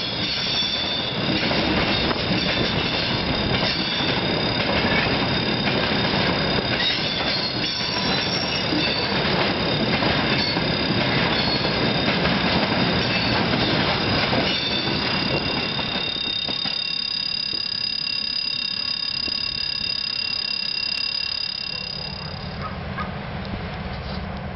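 Freight train of railway tank cars rolling past close by: a heavy rumble of wheels and wagons with steady high-pitched squealing over it. The rumble eases about two-thirds through and the squealing stops shortly before the end.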